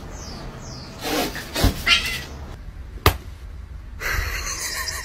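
A cat crying out, followed a second or so later by a single sharp click and, near the end, a stretch of scratchy noise.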